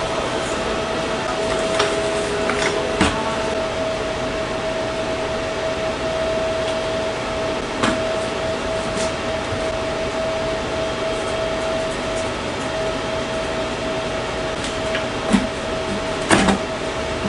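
Steady machine hum with a constant whining tone, broken by a few light clicks and knocks as PVC pipe fittings are handled and pushed together.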